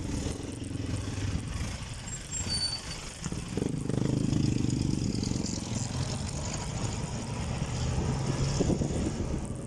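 Street traffic heard from a bicycle: the engines of trucks, tricycles and motorcycles running close by, with one engine getting louder about three and a half seconds in as the bike passes right beside a tricycle.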